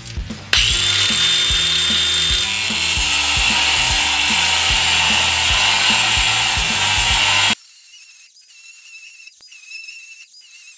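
Stark CAG 1800 cordless angle grinder with a cut-off disc cutting through ribbed steel rebar: a loud, steady, harsh grinding hiss, with a high whine when the cut starts, over rock background music. About three-quarters of the way in, the sound suddenly thins to a faint high whine.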